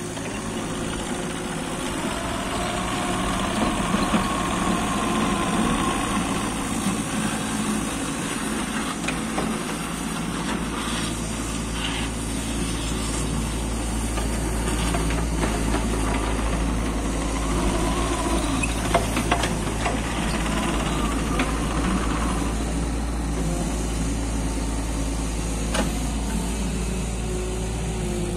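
Diesel engine of a JCB 8026 mini excavator running steadily. Its sound swells and eases a few times, with a handful of sharp clanks scattered through.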